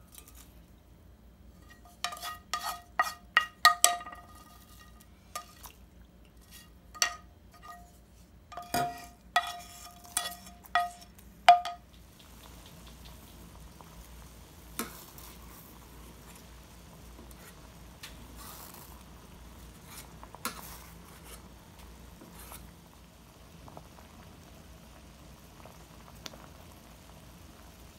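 Sharp metallic clinks ringing off a stainless-steel pot, in clusters for the first dozen seconds. Then a faint, steady bubbling as the pot of anchovy stock comes to the boil, with an occasional light tap.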